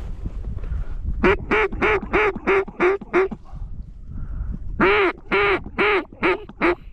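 Hen mallard quacks blown on a duck call to work circling ducks: a run of seven quick quacks, a pause of about a second and a half, then six slower quacks.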